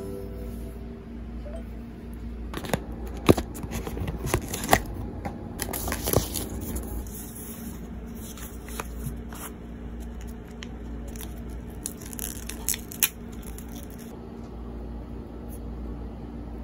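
Packaging being torn and handled by hand, with scattered sharp clicks and crinkles over a low steady hum.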